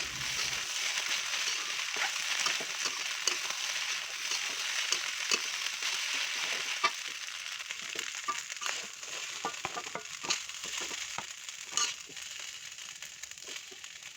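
Fried rice sizzling in a hot pan, the hiss slowly dying down after the stove is switched off, with scattered light clicks.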